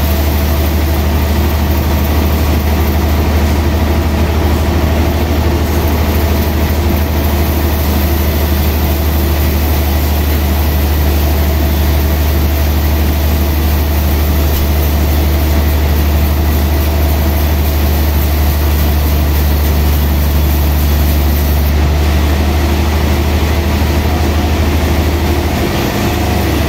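Large band sawmill machinery running steadily with an even, deep drone.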